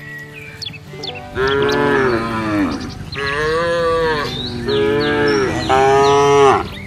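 Cattle mooing: four long calls one after another, each dropping in pitch as it ends, the last one the loudest.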